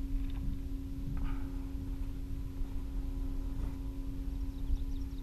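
A steady low hum at one pitch over a constant low rumble, with a couple of faint knocks about a second in.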